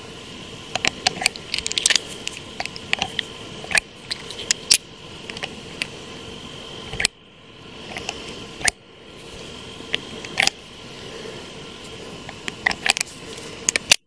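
Cartridges being loaded into the cylinder of a Smith & Wesson Governor revolver: a string of sharp metallic clicks and clinks as brass cases slide into the stainless steel chambers, irregularly spaced and in small clusters.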